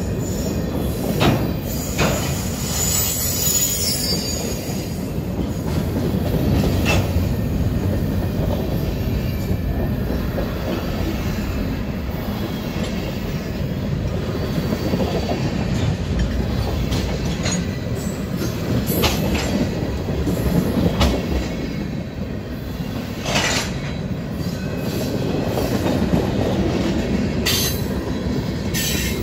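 CSX freight train's tank cars rolling past at close range: a steady rumble of steel wheels on rail, broken by sharp metallic clanks and short squeals from the wheels every few seconds.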